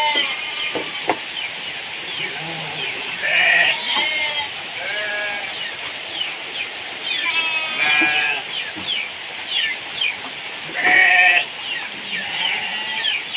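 Animals bleating, several loud calls a few seconds apart.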